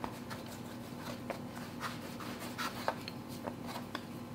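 Hands kneading and pressing a small lump of pastry dough on a floured wooden cutting board: faint soft rubbing with a few light taps.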